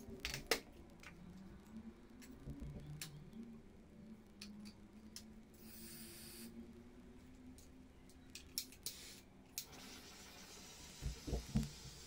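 Small handheld butane torch starting to hiss steadily about ten seconds in, after scattered light clicks and a short hiss about six seconds in; a few low knocks of handling near the end are the loudest sounds.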